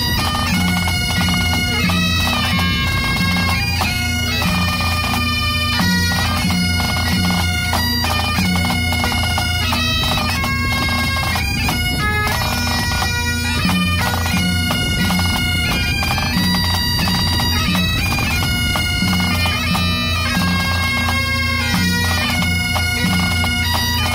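Great Highland bagpipes played by a pipe band: the drones sound steadily under a marching tune of changing held notes, with snare and tenor drums accompanying.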